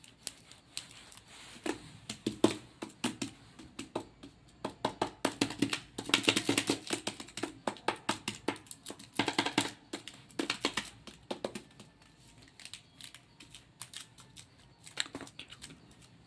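Candy packaging being handled and unwrapped close to the microphone: fast runs of crackling, clicking sounds, densest in the middle and thinning out towards the end.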